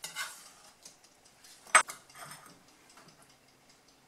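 Faint kitchen-prep clatter: a chef's knife and diced tomato being handled on a wooden cutting board and moved into a glass bowl, with one sharp click about halfway through.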